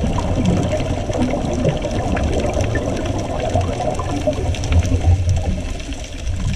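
Underwater ambience: a steady, muffled rush of moving water with a low rumble, picked up by a camera in its housing.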